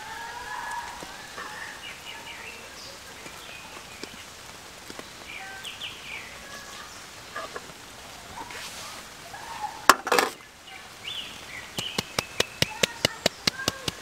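Small birds chirp faintly in the background. Just before ten seconds there is a loud clatter. From about twelve seconds come quick, even taps, about five a second, as salt is tapped out of a hand-held container onto the fish.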